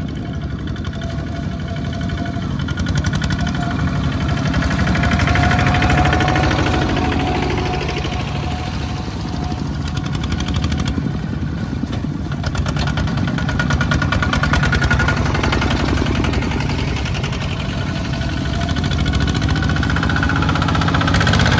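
Small farm tractor engine running steadily under load while hauling a loaded trailer through mud, its rapid firing pulses swelling and easing in loudness a few times.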